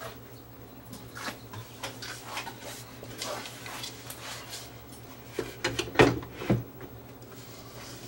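Handling noise as a wooden speaker cabinet is picked up and fitted against the side of the stereo unit: scattered light clicks and knocks, with two sharper knocks about six seconds in, over a faint steady low hum.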